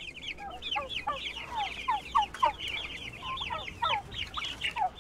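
Turkeys calling: a dense, unbroken run of quick, high, overlapping yelps and chirps.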